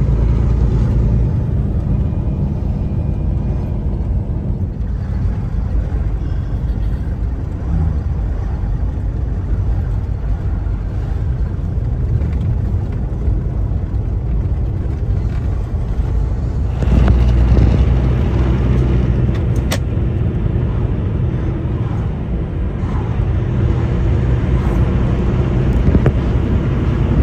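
Kenworth T680 semi-truck driving, heard from inside the cab: a steady low engine drone under road noise. The engine grows louder about two-thirds of the way through.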